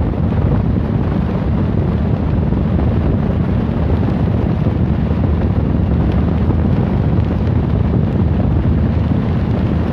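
Steady rush of wind on the microphone of a phone carried on a moving motorcycle, with the motorcycle running underneath it.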